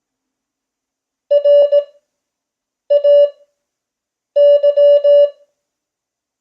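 Morse code (CW) tone keyed in dots and dashes, sending three characters about a second and a half apart, with silence between them: Farnsworth-spaced code at 5 words per minute.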